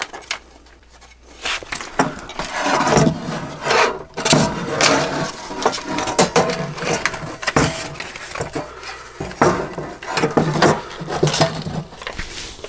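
Hands moving the 3D printer's loose sheet-metal bottom plate and its wiring: irregular rubbing, scraping and clicking, starting about a second and a half in.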